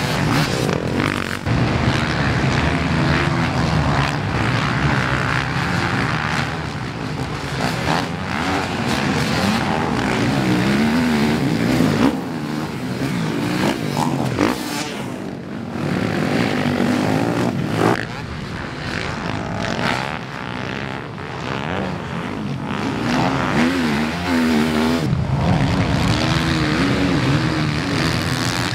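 Several motocross dirt bike engines racing, revving up and backing off as the riders work around the dirt track, the pitch rising and falling again and again.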